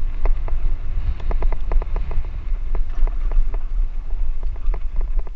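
Bicycle jolting along a bumpy dirt track: irregular sharp clicks and rattles, in quick clusters, over a steady low rumble of wind on the microphone.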